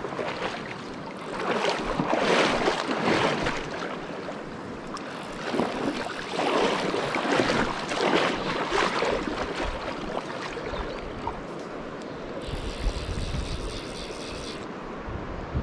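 River water rushing, with swells of wind noise buffeting the microphone. Near the end, a fly reel's clicker ratchets for about two seconds as line is wound in on a hooked trout.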